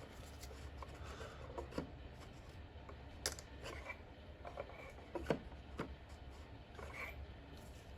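Faint scattered clicks and rubbing of plastic parts being handled as the new oil filter and its cap with a fresh O-ring are fitted, over a low steady hum.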